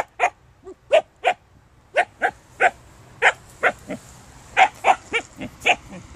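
Siberian husky giving about fifteen short, high-pitched barks and yips in quick succession, often in pairs, at a hedgehog on the ground.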